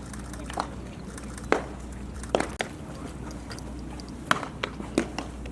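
Baseballs smacking into leather gloves as several players play catch: sharp pops at uneven intervals, about six in all, the loudest about a second and a half in, near two and a half seconds, and past four seconds.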